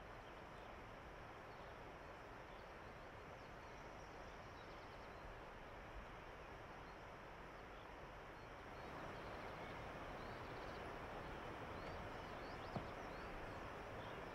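Quiet outdoor ambience: a steady hiss with small high bird chirps scattered through it. The hiss grows a little louder about two-thirds of the way in, and there is a single faint click near the end.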